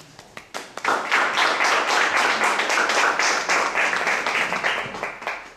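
Audience applauding: a few scattered claps that swell into full applause about a second in, then die away near the end.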